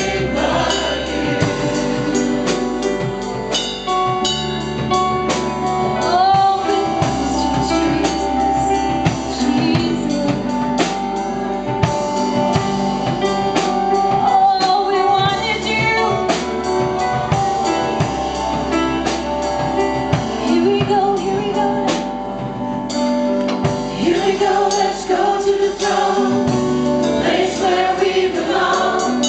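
Live gospel-style worship music: a group of singers with a band, with a steady beat from percussion under the voices.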